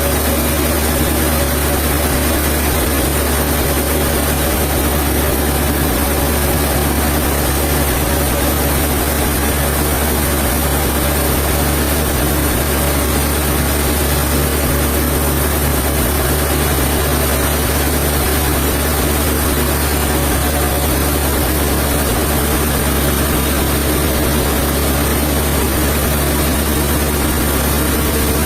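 Sawmill machinery running with a steady, unchanging low mechanical hum.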